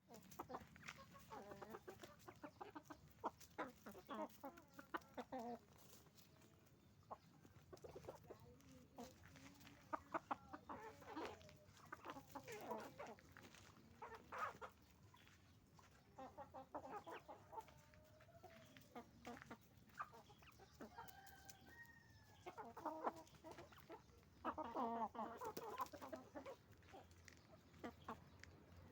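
A flock of farm chickens, hens and roosters, clucking and calling in short, irregular bursts, over a faint steady low hum.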